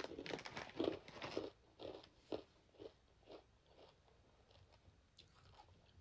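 A cluster of puffed freeze-dried rainbow candy being bitten and chewed. It starts with dense, loud crunching, then single crunches come about every half second and grow fainter as the candy breaks down.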